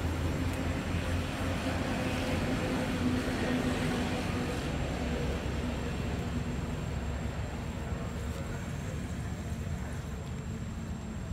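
Steady low rumble of motor traffic, with an engine's drone that fades out about halfway through.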